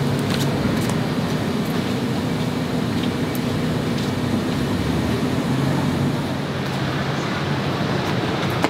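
Steady low hum and hiss of distant traffic, with a brief click near the end.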